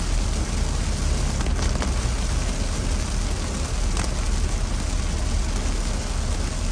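Heavy rain pelting a car's windshield and roof, heard from inside the moving car over a steady low rumble of road and wind noise, with a couple of sharper drop ticks.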